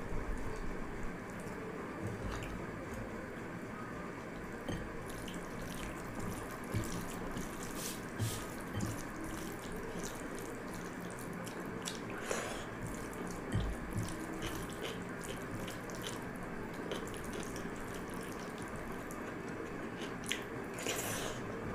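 Fingers mixing and squishing pakhala bhaat, cooked rice soaked in water, in a glass bowl: wet squelches, drips and small clicks, with one louder wet sound near the end.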